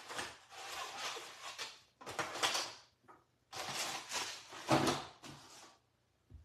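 Kitchen handling noises in several short spells of rustling and knocking, with a louder knock about five seconds in.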